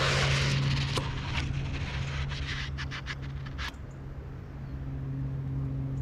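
Footsteps crunching and scraping on a forest path, a quick run of crackles that stops after nearly four seconds, over a steady low mechanical hum. A louder rush of noise comes in the first second.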